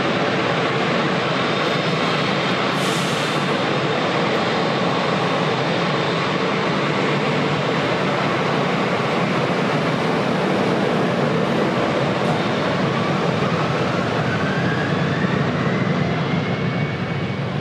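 Jet airliner engines: a steady, loud rush of engine noise, with a thin whine rising in pitch over the last few seconds.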